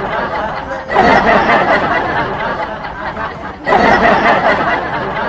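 Laughter mixed with chatter from several people, in two loud stretches with a short dip about a second in and again after about three and a half seconds.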